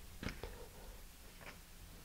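Faint handling noise: a few soft ticks as fingers work a Kevlar shock cord into a knot around a paper engine tube.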